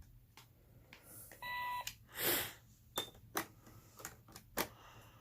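Toy cash register beeping once as an item is scanned, about a second and a half in, then a brief rustle, a short higher beep from a key, and several light clicks of keys being pressed and items handled.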